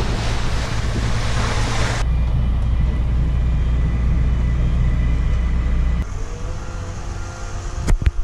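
Wind on the microphone and water rushing along the hull of a fishing boat under way, cut off after about two seconds by a steady low boat-engine hum. About six seconds in the hum drops to a quieter drone with a faint steady tone, and two sharp clicks come near the end.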